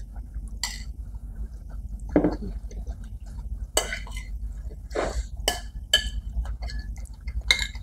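Metal forks and spoons clinking and scraping on ceramic dinner plates while eating: about half a dozen separate sharp clinks.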